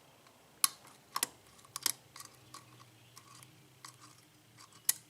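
Single-pin picking a six-pin Corbin cylinder lock: a metal pick clicking against the pins. A handful of sharp, irregular clicks spaced about half a second to a second apart.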